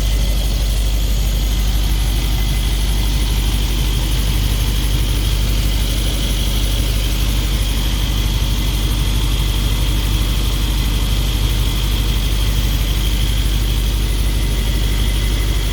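Mercedes-AMG G63's 4.0-litre twin-turbo V8 idling steadily after an engine repair, with a steady high-pitched tone over it. A vacuum line is still left disconnected at this point.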